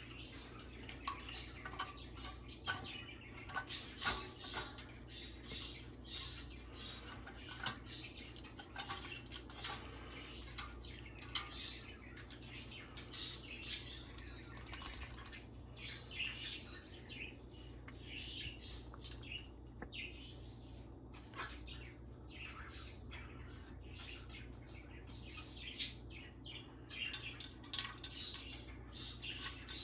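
Goffin's cockatoo pecking and prying at aluminium soda cans: irregular clicks, taps and clinks of beak on metal, with the cans knocking together, and a few short chirps in between.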